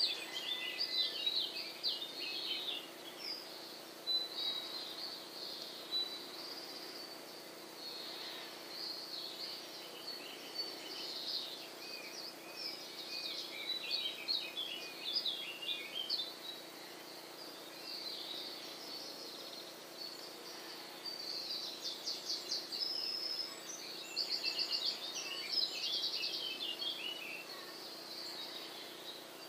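Small songbirds chirping and twittering, overlapping calls, with two fast trills in the later part. A faint steady hum runs underneath.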